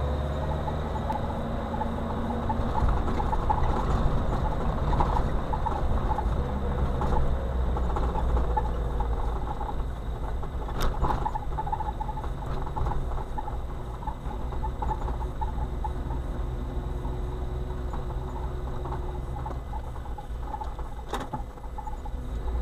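Interior sound of a car driving, picked up by a windshield dashcam: steady engine and tyre rumble on a rough road surface, with small repeated ticks and rattles. Two sharp clicks, about halfway through and near the end.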